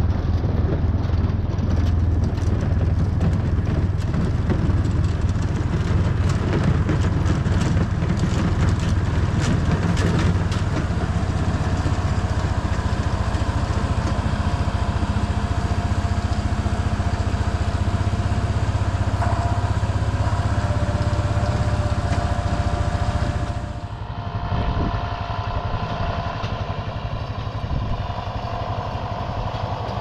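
Four-wheeler engine running steadily while driving over rough field ground, with rattles and knocks in the first ten seconds. About 24 seconds in the engine sound drops and changes.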